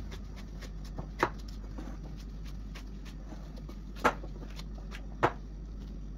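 Gloved hands working a risen yeast dough in a glass bowl: soft rustling and small clicks of glove and dough, with three sharp knocks or slaps, about a second in, about four seconds in and a second after that.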